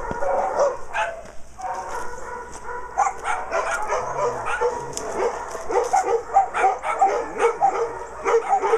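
Several dogs barking and yipping in short repeated barks that overlap at different pitches, coming faster from about three seconds in.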